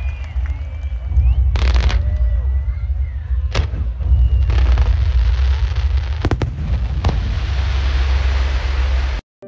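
Fireworks display: four sharp bangs of bursting shells over a steady low rumble, with dense crackling from about halfway through. The sound cuts off abruptly near the end.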